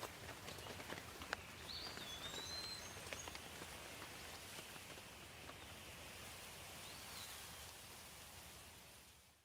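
Faint light rain with scattered dripping drops, and a few bird chirps, two about two seconds in and one near the end. The sound fades away at the very end.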